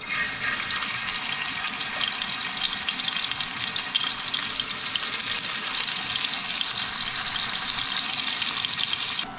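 Pieces of lingcod sizzling in hot oil in a frying pan as they are laid in: a steady hiss with fine spattering crackles that cuts off suddenly near the end.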